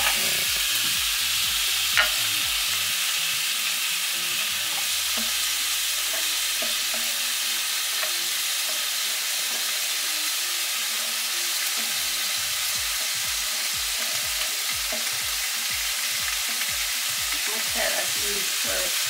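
Carrot and sweet-pepper strips sizzling steadily in a frying pan of hot vinegar, with a couple of light clicks near the start as pieces are dropped in.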